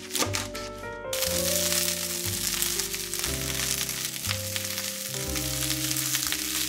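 A knife chops turnip leaves on a wooden cutting board for about a second. Then the chopped turnip leaves and stems sizzle loudly as they are stir-fried in a frying pan. Soft background music runs throughout.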